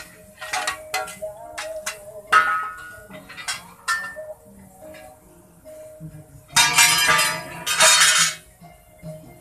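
Steel tyre irons, a pry bar and a hammer striking and levering against truck tyres and their steel rims: a run of sharp metallic clinks and knocks, one ringing strike about two and a half seconds in, and a longer rough noise in two stretches of about a second each around seven to eight seconds in.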